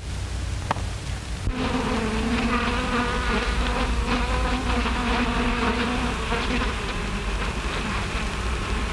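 Bees buzzing: a steady, slightly wavering droning buzz that comes in about a second and a half in and thins out later on, over the steady background noise of an old film soundtrack.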